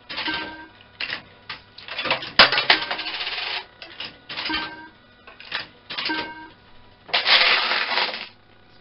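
Coins being fed one after another into a Super Bar-X fruit machine, each dropping through the coin mechanism with a clatter and a short electronic credit beep as the credits count up. Two longer rattles of coins come about two and a half seconds in and again about seven seconds in.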